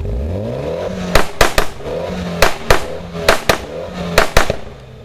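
Mitsubishi Lancer's exhaust backfiring with loud, sharp bangs, about nine in groups of two or three, between short throttle blips: anti-lag pops and bangs.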